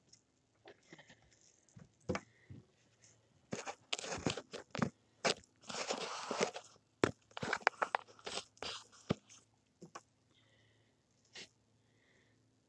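Close handling noise on the phone's microphone: irregular crunching, rustling and small knocks as a nylon jacket sleeve and a hand brush against and move things around the phone. Two faint short high chirps follow near the end.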